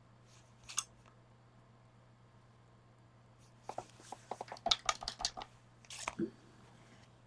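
Scissors cutting paper: one snip, then a run of quick snips a few seconds later.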